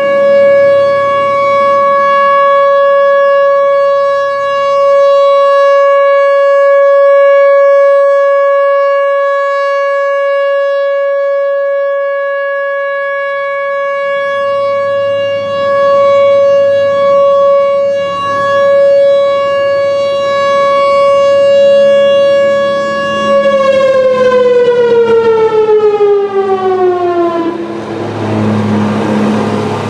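Whelen Vortex R4 rotating outdoor warning siren sounding its steady alert tone, swelling and fading as the head rotates. About 23 seconds in, the pitch falls as the siren winds down at the end of the three-minute alert, leaving a rushing noise.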